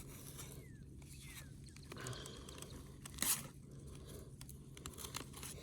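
Faint handling noises, with one short, scratchy rasp about three seconds in.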